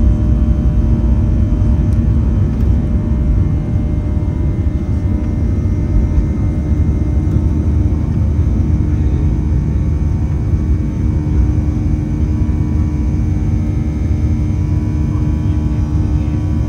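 Steady cabin noise inside a Boeing 737-700 in flight or on its takeoff run: a continuous low rumble of its CFM56-7B jet engines and airflow, with several steady engine tones held over it.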